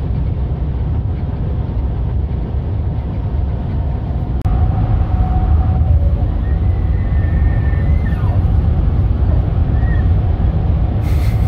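Car driving at highway speed, heard from inside the cabin: a loud, steady low rumble of road and engine noise, a little louder after about four and a half seconds.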